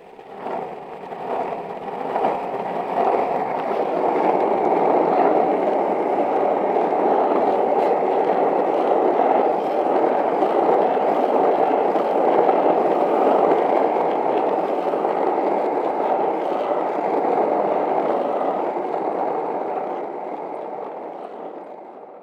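Skateboard wheels rolling over pavement: a continuous gritty rumble that builds up over the first few seconds, holds steady, and fades near the end.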